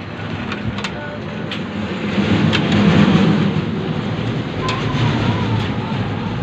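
A steady low rumble that swells about two seconds in, with a few light clicks and knocks from hands working among the cables and metal drive cage of an open desktop PC.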